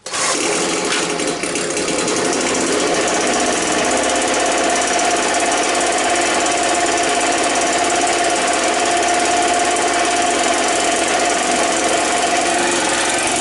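Homelite two-stroke gas leaf blower engine running steadily with a loud, even whine, just started after sitting for years.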